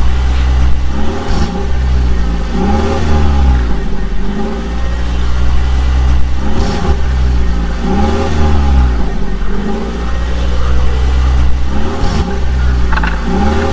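Vehicle engine sound revving up and down in repeated swells, one about every second and a half, over a steady low rumble.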